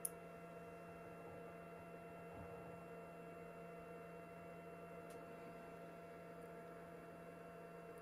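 Faint steady electrical hum made of several constant tones, with a soft click at the very start.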